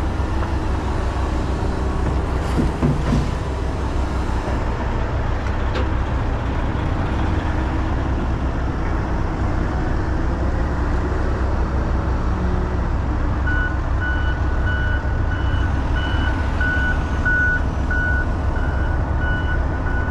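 Diesel truck idling with a steady low rumble, with a few knocks in the first few seconds. About two-thirds of the way in, a reversing alarm starts beeping repeatedly, roughly one and a half beeps a second.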